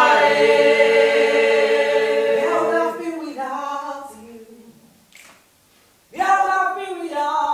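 Small group of women singing a worship song a cappella, with no instruments. A long held phrase dies away about halfway through, there is a brief hush, and the singing starts again near the end.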